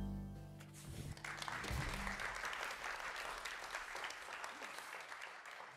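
The last chord of a jazz quartet (soprano saxophone, piano, double bass and drums) rings out and fades over the first two seconds, while audience applause starts about a second in and carries on, slowly thinning.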